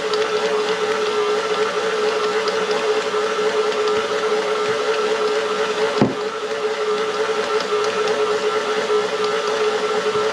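Electric stand mixer running steadily as it kneads bread dough, a constant motor hum, with one brief knock about six seconds in.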